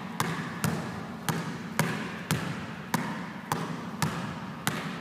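A basketball being dribbled behind the back on a gym floor, about two bounces a second, each bounce echoing.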